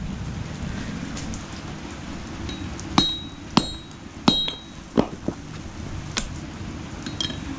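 Hammer blows on a mild-steel knife blade against an anvil: about six sharp strikes from about three seconds in, each with a short high metallic ring, over a steady hiss of rain.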